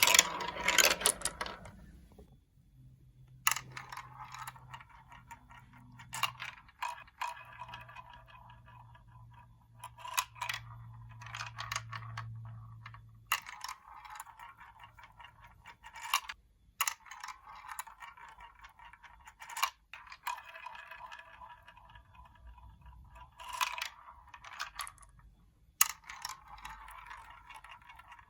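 Marbles rolling and rattling along plastic building-block marble run tracks, with sharp clicks every few seconds as they drop onto and strike the pieces. There is a loud clatter in the first two seconds and a faint low hum under the first half.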